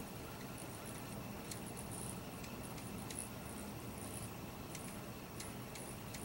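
Hummingbird giving short, high, thin chip notes at irregular intervals, with faint ticks among them, over a steady low background hum.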